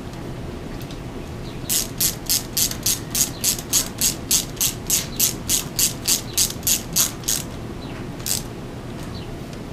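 Quarter-inch drive ratchet clicking in an even run of about three to four clicks a second for some five seconds, then one more click, as it snugs down valve cover bolts.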